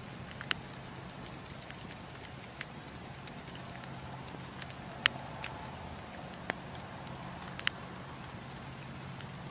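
Wood campfire burning: a steady soft hiss with irregular sharp crackles and pops from the logs, the loudest pop about five seconds in. A faint low hum runs underneath.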